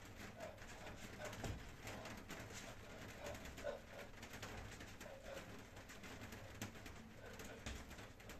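Bare feet thudding now and then on a floor mat during kicks, with short soft low coo-like sounds scattered in between.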